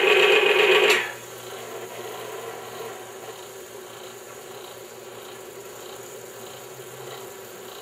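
Grease-lubricated wheel of a bench lubricant-test machine grinding against a steel test specimen under lever load: a loud, steady screeching rasp that cuts off abruptly about a second in as the load is taken off. After that only a much quieter steady running noise remains.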